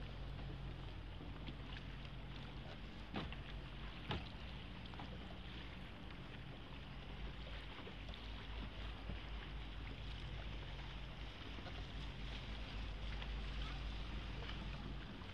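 Water lapping and splashing around a small rowing boat as it is rowed with a wooden oar, over the low steady hum of a boat engine. Two sharp knocks about three and four seconds in.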